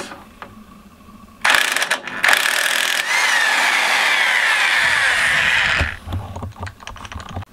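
Impact wrench hammering a 14 mm nut off a Kawasaki KDX80 engine's clutch: a short burst, then after a brief pause a longer run of about three and a half seconds with a falling whine, followed by a few light clicks.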